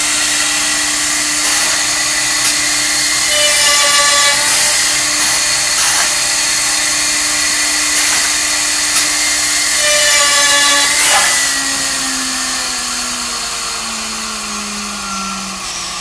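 US Concepts CRD-300 automatic handrail drilling machine running, its spindle motor giving a steady whine while the bit drills baluster holes into a wooden handrail, with two louder passages about four and ten seconds in. In the last few seconds the whine steps down in pitch and grows quieter.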